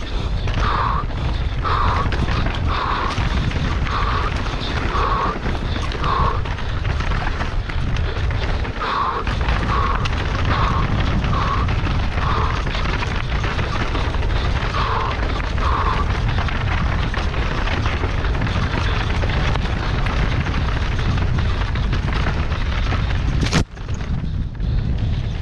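Mountain bike descending a rough downhill trail, heard on the rider's own camera as a steady heavy rumble of wind buffeting and trail noise. A shorter, higher sound repeats about once a second for stretches. Near the end there is a sharp knock and the noise briefly drops away.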